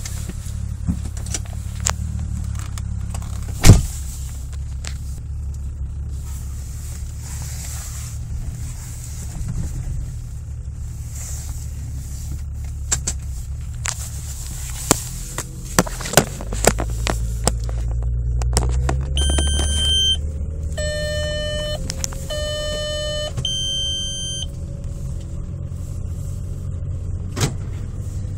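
12-valve VR6 engine idling roughly, its low note uneven and shaking, with scattered clicks: the misfire at idle that the owner traces mostly to cylinder 3. About two-thirds of the way through, a run of short electronic chime tones sounds over it.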